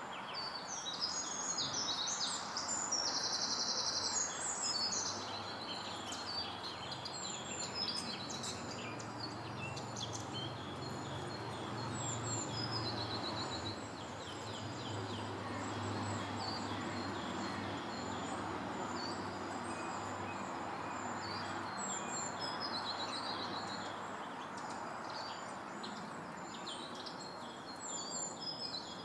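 Small woodland birds singing and calling over one another, with a fast high trill a few seconds in, over a steady background hiss. A low steady drone comes in about eight seconds in and fades out around twenty seconds.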